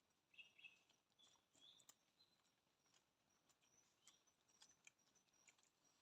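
Near silence, with faint short bird chirps and a few faint scattered ticks.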